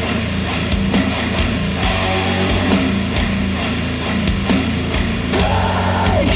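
Hard rock track with a steady drum beat, played back through Wharfedale Diamond 12.2 bookshelf speakers.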